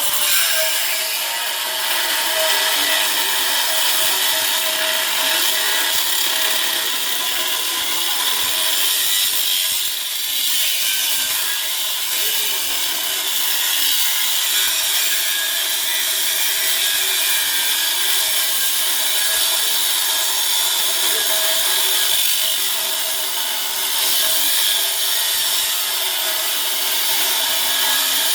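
Angle grinder cutting steadily into the thick steel wall of a safe: a continuous grinding hiss with a steady whine, the tool held at a constant load.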